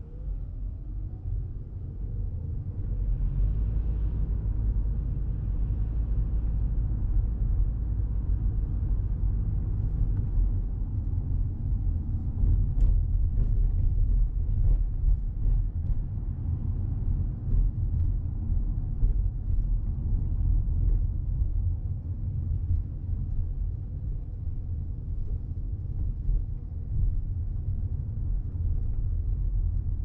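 Low road and tyre rumble inside the cabin of a Toyota Crown Athlete Hybrid (210 series) driving along, growing louder over the first few seconds as the car gathers speed and then holding steady. Faint light ticks come and go partway through.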